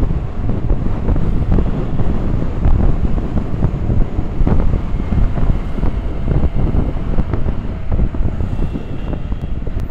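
Wind buffeting the microphone of a camera on a moving scooter: a loud, low, unsteady rush.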